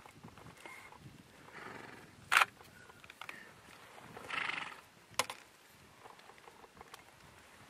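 Two sharp clicks of a still camera's shutter close to the microphone, about two and a half and five seconds in, the first the loudest. A short breathy rush comes just before the second click.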